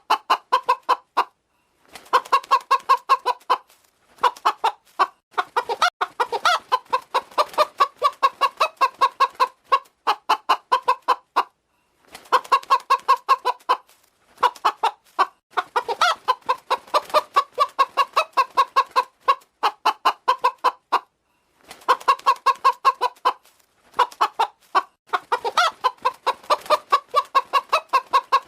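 Hen clucking: runs of quick, short clucks in bouts, broken by brief pauses.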